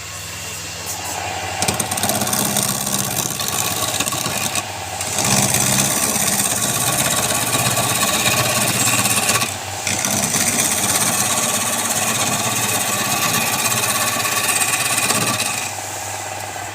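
Wood lathe running with a steady motor hum while a tool works the spinning wood with a rasping noise. It is lighter at first, then comes two loud passes of about four and five seconds with a brief break between, and eases off near the end.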